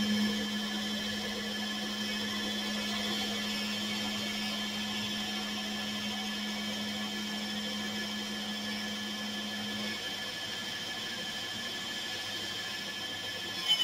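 VFD-driven lathe spindle running at a steady speed during a CNC turning cut, with a steady high whine and a low hum that stops about ten seconds in.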